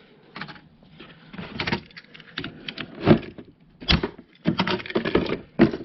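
Handling noise from a pneumatic staple gun: irregular clicks, knocks and rattles, the sharpest a little past the middle and near the end.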